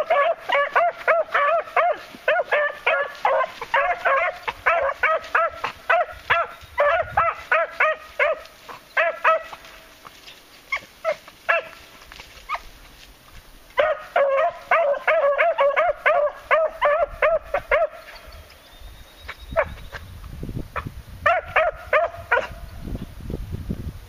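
Beagles giving tongue on a scent trail: rapid strings of short, high barks, several a second. The barking runs fast and thick for the first ten seconds or so, thins to scattered barks, comes back strongly in the middle for about four seconds, and returns briefly near the end.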